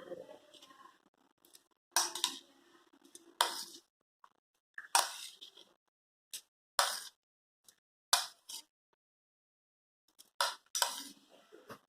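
A spoon clinking and scraping against bowls and plates as chopped vegetables are tipped into a bowl: a string of short, separate clinks about every second or two.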